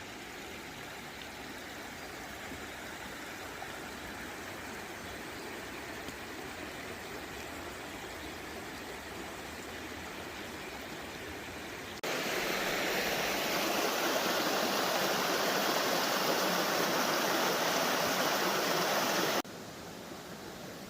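Creek water rushing steadily. It grows much louder and brighter for about seven seconds past the middle, then drops back; the change starts and stops abruptly.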